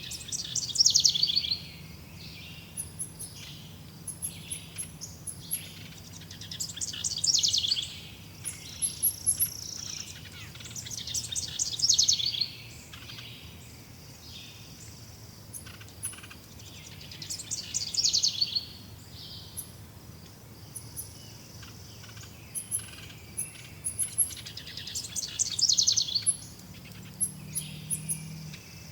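Forest birds singing: one bird repeats a loud, falling trilled phrase about every five to six seconds, five times in all. Many short, high chirps from other birds fill the gaps, over a faint steady background.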